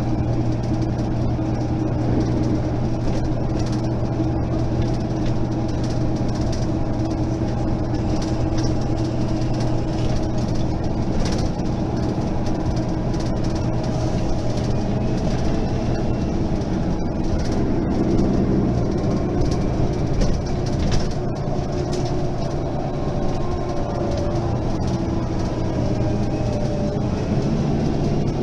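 Mercedes-Benz Citaro facelift city bus running under way, its diesel engine and automatic gearbox giving a steady drone whose pitch shifts a little over halfway through, with a faint rising gearbox whine after that.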